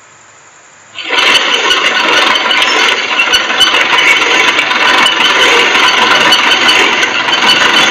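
Rice seed drill being run by turning its wheel: the seed-metering mechanism rattling and a dense clatter of rice grains falling out of the seed tubes onto a plastic tarp. It starts suddenly about a second in and then goes on steadily.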